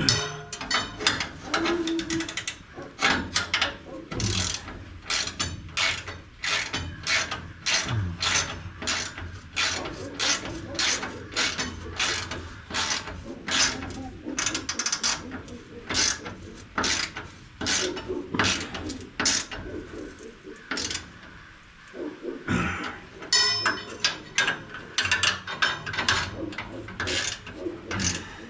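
Hand socket ratchet wrench clicking in steady back-and-forth strokes, about two clicks a second, as bolts are turned during reassembly. There is a short pause about two-thirds through before the clicking resumes.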